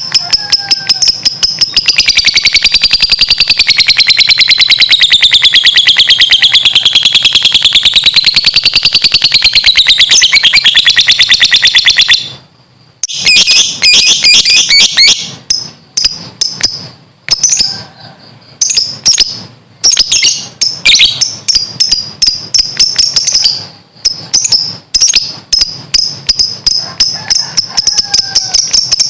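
Lovebird ngekek: a loud, shrill, very rapid chattering trill held unbroken for about ten seconds, its pitch wavering up and down, then breaking into shorter bursts with brief pauses.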